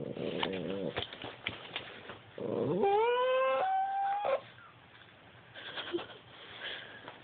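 Cavalier King Charles Spaniel making strange, unhappy vocal noises: a short low grumble, then a long howling whine that swoops up in pitch, holds, jumps higher and breaks off suddenly.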